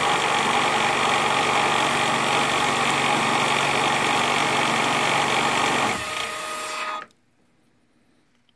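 Emco Compact 5 lathe running with the tool taking a heavier turning cut on a metal bar: a loud, steady machining noise. About six seconds in the sound changes and thins, and a second later the spindle stops suddenly.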